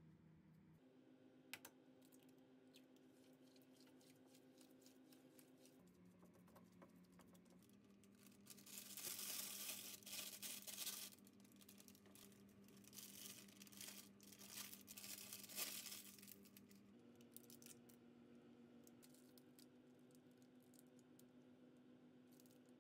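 Thin plastic bag crinkling and rustling in two stretches of a few seconds each, the first starting about eight seconds in and the second following shortly after, over otherwise near silence.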